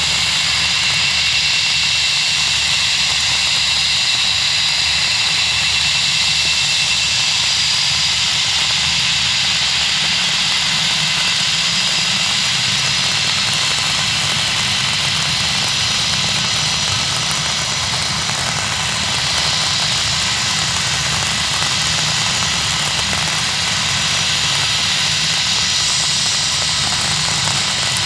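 An Airbus A320-232's IAE V2500 turbofan jet engines running steadily at low thrust, a high whine over a low rumble, as the airliner taxis onto the runway and lines up.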